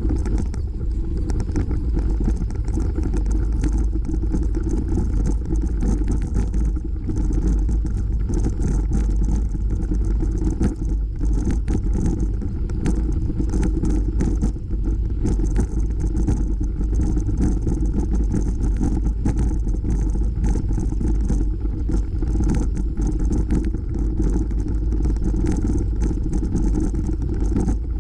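Bicycle tyres rolling over a gravel trail: a steady low rumble with a constant patter of small crackles and rattles.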